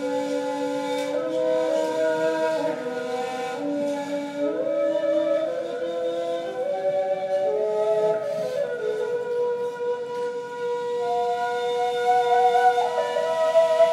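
Two neys, end-blown reed flutes, playing an improvised modal duet: long, breathy held notes that move in slow steps, the two lines sounding together at different pitches.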